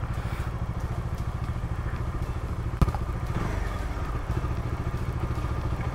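Bajaj Dominar 400's single-cylinder engine running with a steady, even pulsing rumble. A single sharp click comes about halfway through.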